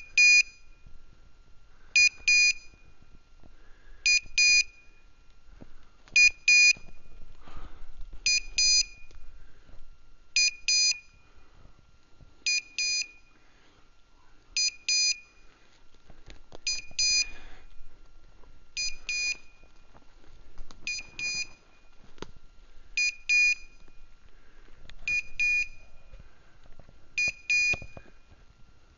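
Hunting dog's beeper collar in point mode sounding a double beep about every two seconds, the signal that the dog has stopped and is standing on point.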